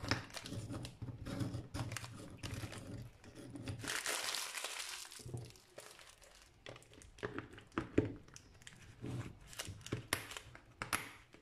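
Gold foil biscuit wrapper crinkling and rustling as biscuits are tipped out of it into a plastic container, with light clicks and knocks of the container and its lid, most of them in the second half.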